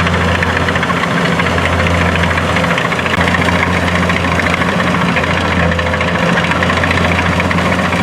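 An engine running steadily under no change of speed, a low hum with a fast, even clatter over it.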